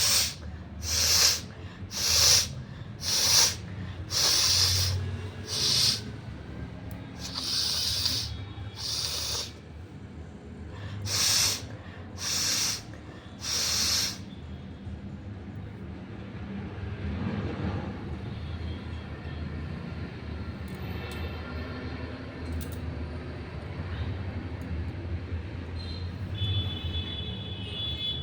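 A person snorting and sniffing hard through the nose in a string of short, sharp bursts, about one a second, trying to bring on a sneeze that does not come. The bursts stop about halfway through.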